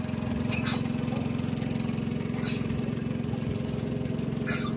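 An engine running steadily at one constant low speed, an even drone. A few faint brief noises sit over it.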